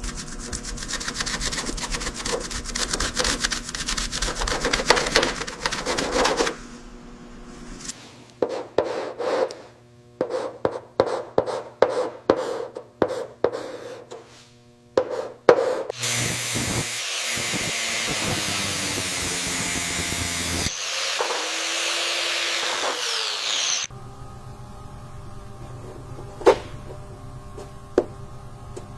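Workshop hand-tool sounds on the figure: a stretch of rapid rubbing and scraping, then repeated back-and-forth strokes about two a second, then a steady hiss lasting several seconds, then a few sharp clicks, over faint background music.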